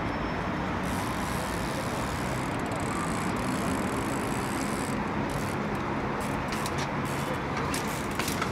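Steady city traffic noise, with a low rumble under it. A few sharp clicks come near the end.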